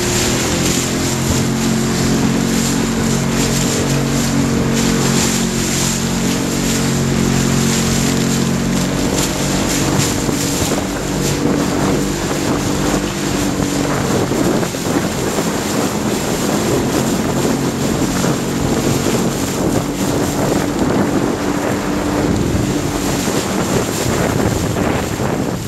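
Motorboat engine running at a steady hum, under heavy wind rumble on the microphone and the rush of water and spray. The engine tone fades about halfway through and returns faintly near the end.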